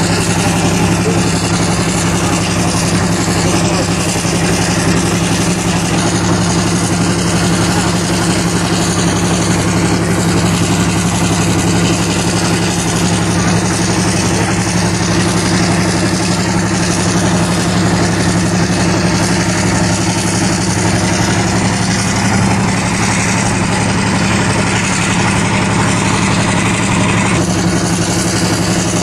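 EMD diesel locomotive engine running steadily at close range with the rumble of the moving train, a low even drone. A brighter hiss is added for a few seconds near the end.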